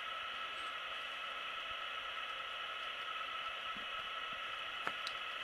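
Steady, even background hiss, with a couple of faint ticks near the end.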